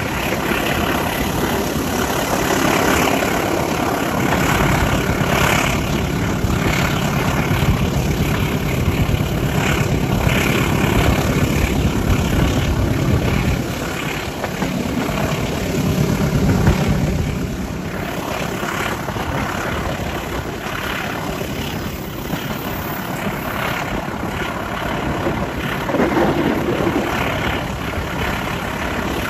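Diesel-electric locomotive CC203 0203, a GE V12 diesel, running under load with the steady rumble of the moving train. The sound eases a little about halfway through.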